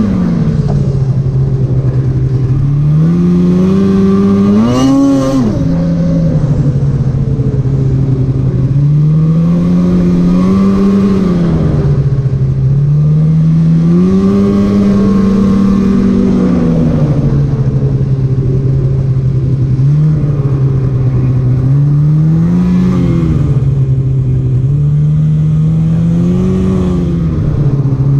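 Polaris 850 Patriot two-stroke twin snowmobile engine under way, its pitch rising and falling again and again as the throttle is worked, with one sharper rev about five seconds in.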